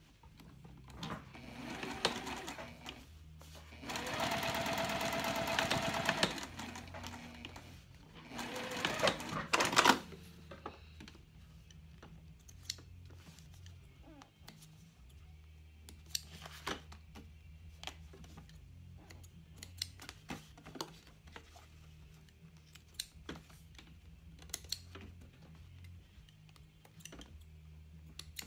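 Juki TL2010Q straight-stitch sewing machine stitching through cork fabric in short runs, the longest and loudest about four to six seconds in and another ending near ten seconds. After that only scattered light clicks.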